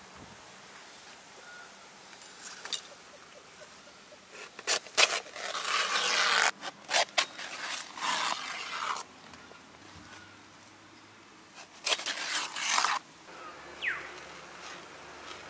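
Fresh banana leaves rustling, crackling and tearing as they are handled and cut with a blade. The sound comes in two loud spells of crisp rustling with sharp snaps: a longer one from about four and a half seconds in, and a shorter one about twelve seconds in.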